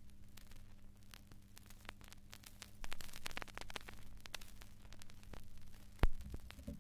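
Turntable stylus riding a clear vinyl record after the music has ended: surface crackle and scattered clicks over a steady mains hum. A sharp, loud click comes about six seconds in, followed by a few low thumps as a hand works the turntable.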